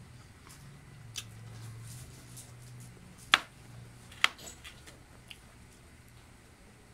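Eating by hand: chewing and wet mouth smacks with a few short sharp clicks, two much louder ones a second apart near the middle, over a low steady hum.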